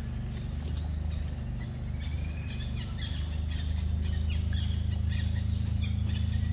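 Small birds chirping over a steady low hum, which grows louder about four seconds in.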